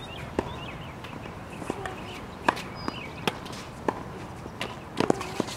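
Tennis balls being struck by rackets and bouncing on a hard court during a rally: a string of sharp pocks at uneven intervals, about ten in all, several coming close together near the end.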